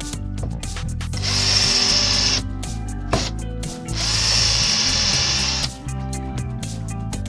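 Power drill running in two bursts, each about a second and a half long, over background music.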